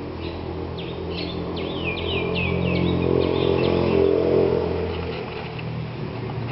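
Small birds chirping in quick, high, repeated notes over a low engine hum. The hum grows louder about three to four seconds in, then eases off.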